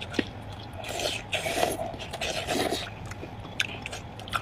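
Close-miked eating sounds: two stretches of wet sucking and slurping, about a second and two seconds in, with a few sharp mouth clicks and smacks around them.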